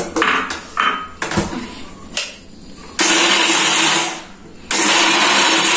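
Electric mixer grinder with a steel jar pulsed twice to crush pistachios: a few knocks and clicks of the jar on the base, then the motor runs for about a second, stops briefly, and runs again.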